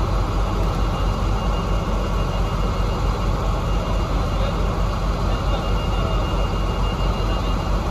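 KamAZ truck's diesel engine running steadily, a low even rumble, with a faint high steady tone that stops about three and a half seconds in and returns about five seconds in.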